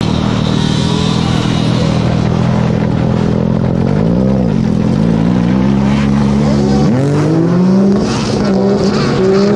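Sea-Doo race jet ski's Rotax four-stroke engine running steadily at the start, with a short throttle blip about four seconds in. About seven seconds in the revs rise sharply as the ski launches off the start, and water spray hisses near the end.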